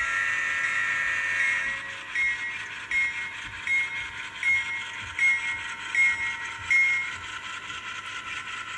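ESU LokSound 5 sound decoder in an N-scale GE P42 diesel locomotive, playing through the model's small speaker: a held horn chord that stops about two seconds in, then the locomotive bell ringing seven times, about three quarters of a second apart, over the steady diesel engine sound.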